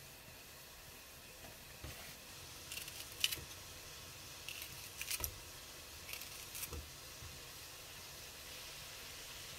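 Kitchen scissors snipping through a thick green onion stalk over a pot, a series of short sharp snips in clusters about three, five and six and a half seconds in, over a faint steady hiss.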